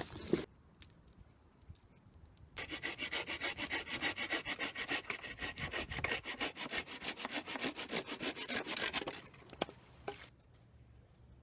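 Hand saw cutting through a dry dead branch, with steady back-and-forth strokes about three or four a second for some six seconds, then stopping suddenly. Two sharp cracks come right at the start.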